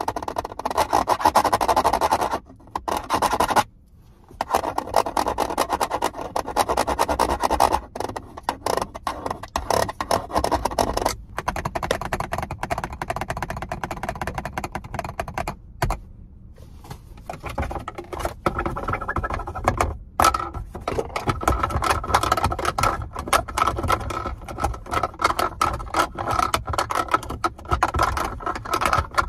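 Rapid fingernail scratching and tapping on a car's sun visor and fabric headliner, a dense run of scrapes and clicks broken by a few short pauses. From about two-thirds of the way through, a steady high tone sits under the scratching.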